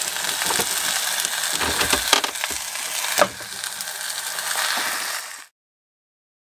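Mini frozen pizzas sizzling and crackling in a frying pan on an electric hob, with a few sharp clicks from handling in the pan. The sound cuts off suddenly near the end.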